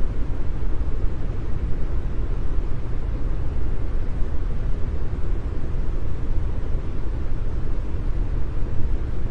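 Continuous brown noise: a steady, deep hiss, strongest in the low end and thinning out toward the top.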